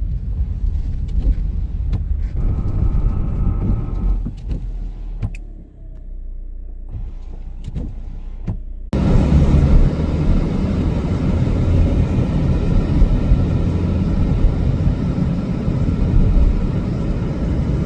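Low rumble of road vehicles with scattered clicks and knocks, cutting suddenly about nine seconds in to a louder, steady rushing rumble.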